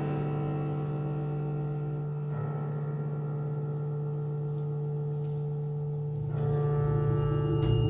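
Electroacoustic chamber music for flute, clarinet, violin, cello, piano and electronics: long, steady sustained tones held together, with some dropping out about two seconds in and a louder, brighter layer entering about six seconds in.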